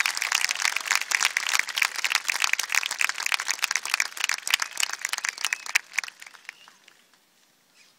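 Audience applauding with a few shouts, the clapping thinning out and dying away about six or seven seconds in.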